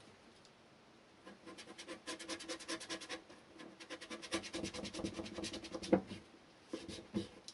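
A knife sawing through three-strand rope on a wooden cutting board, in fast back-and-forth scraping strokes in two spells with a short pause between, and a sharp knock about six seconds in.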